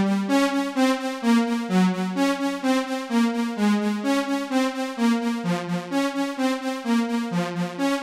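Yamaha Montage synthesizer playing an arpeggiated synth pattern: a steady run of fast, even, repeating notes over a changing lower line, with the Super Knob sweeping the arpeggio's stereo pan against its left-right delay.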